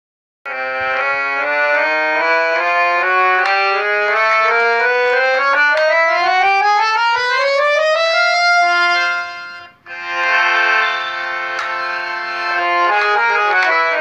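Harmonium playing: a run of notes climbing step by step in pitch for about eight seconds, then held notes after a brief break, and notes stepping back down near the end.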